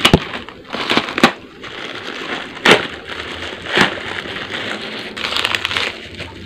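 Plastic courier bag being torn open and handled, with the plastic-wrapped box inside crinkling as it is pulled out: a rustling crinkle broken by several sharp crackles.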